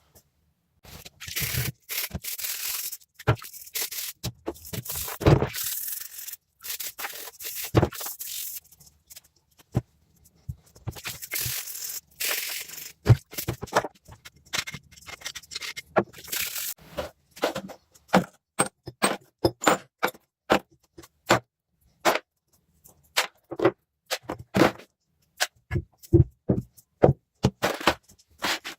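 Scraping and rubbing on metal parts of a rusty small vise being cleaned by hand, in long scratchy passes, then a run of sharp clicks and knocks in the last third.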